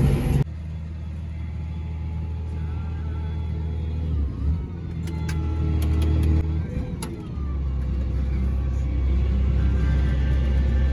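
Steady low engine drone of a vehicle, with a few light clicks in the middle; the drone dips briefly about four seconds in and again around seven seconds.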